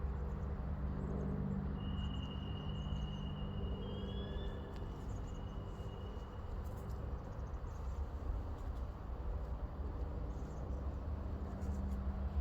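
Outdoor ambience dominated by a steady low rumble of distant traffic. A thin, high, steady whistle, likely a bird or insect, sounds from about two seconds in to about six seconds, with a couple of short rising chirps near it.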